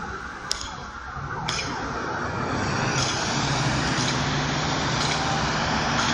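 Street traffic noise from cars at an intersection: a steady wash of engines and tyres with a low engine drone, building about a second and a half in. A single sharp click about half a second in.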